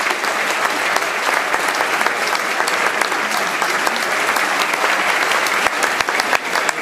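Theatre audience applauding steadily at a curtain call: dense, continuous clapping from a large crowd.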